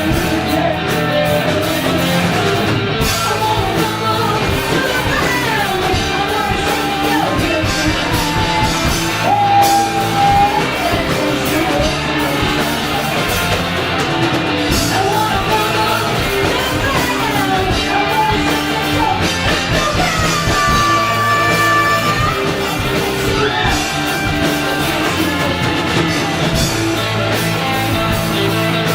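Live rock band playing a funky song, a voice singing a wavering melody over guitar, bass and drums, in a large room.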